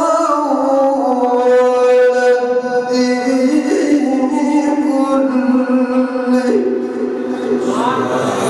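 A male qari reciting the Quran in melodic tajweed style, drawing out long held notes that step down and up in pitch, with a more wavering, ornamented passage near the end.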